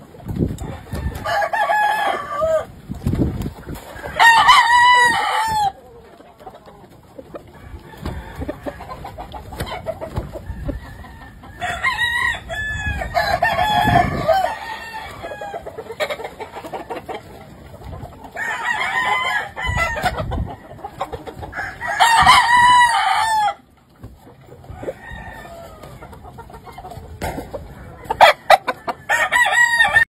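Gamefowl roosters crowing again and again, about six long crows spaced a few seconds apart through the pens.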